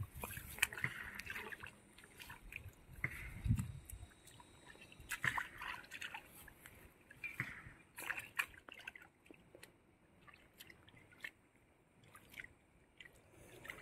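Muddy pond water sloshing and dripping in irregular small splashes, with a few low thumps in the first four seconds, then quieter.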